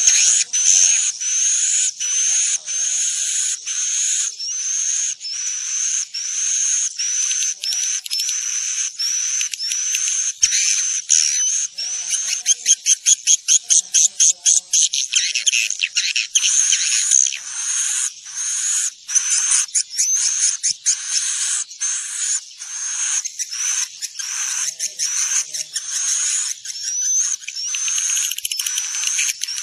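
Swiftlet (walet) calls, the lure recording used to draw swiftlets into nesting houses: sharp rising chirps repeating about twice a second. The chirps quicken into a rapid run of about a dozen around the middle, then settle back to the slower pattern.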